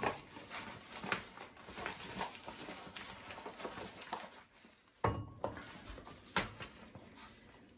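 Light, scattered clicks and taps of frozen pesto cubes being handled and dropped into a bowl.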